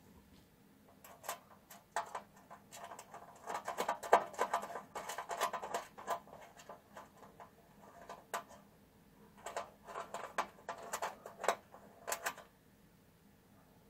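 Small metallic clicks and scraping on a thin tin lid as a toggle switch's mounting nut is screwed down by hand. The sound comes in two busy stretches, one a few seconds in and one near the end.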